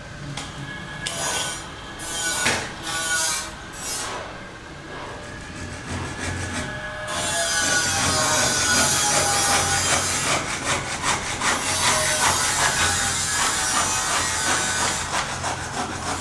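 Wood being sawn: separate rasping strokes for the first several seconds, then a continuous rasping from about seven seconds in.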